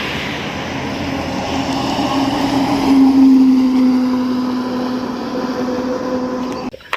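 Toy vehicle whirring steadily, with a hum that slowly drops in pitch in the second half and then cuts off abruptly near the end.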